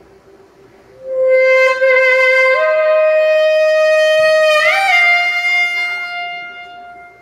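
Saxophone playing a slow solo phrase of three long held notes, each a step higher than the last. It enters about a second in, the top note bends up into pitch and then fades away.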